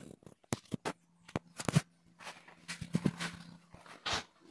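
Footsteps on a hard floor: light, irregular taps, with a faint steady hum through the middle.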